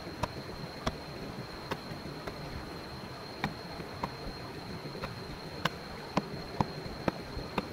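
A steady high-pitched insect drone holding one thin tone, with sharp clicks or snaps at irregular intervals, roughly one a second.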